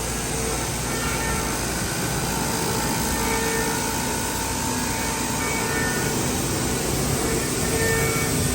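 A vertical machining center running under power: a steady rushing noise with short, changing tones that come and go every second or two.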